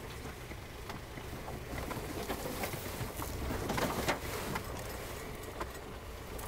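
Suzuki Jimny JB64 crawling slowly along a rough forest track, its small three-cylinder turbo engine a steady low rumble under many sharp crunches and clicks from the tyres rolling over gravel and debris.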